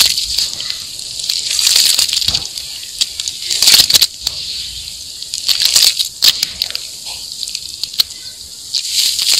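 Hands squeezing and kneading wet sand-cement mud in a basin: wet, hissy squishing with many sharp clicks, coming in repeated swells as the fingers work through the paste.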